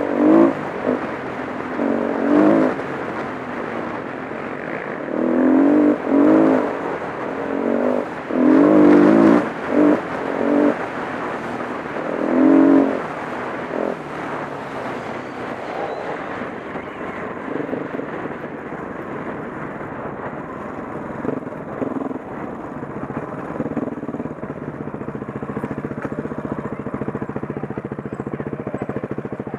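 Single-cylinder four-stroke dirt bike engine ridden along a dirt track, revving up and dropping back several times in the first half. It then runs more evenly at lower revs and settles to a steady low note near the end as the bike slows.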